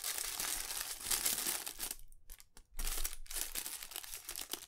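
Black tissue paper crinkling as it is handled and unwrapped, in two spells with a short pause about two seconds in.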